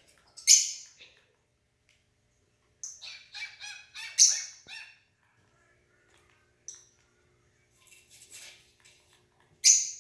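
A bird giving short, shrill chirps and squawks in irregular bursts. The loudest calls come about half a second in, around four seconds in, and near the end.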